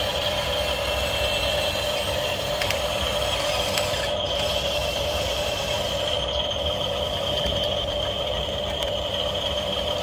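Small electric gear motors of a radio-controlled toy excavator running with a steady whine as the arm and bucket are worked.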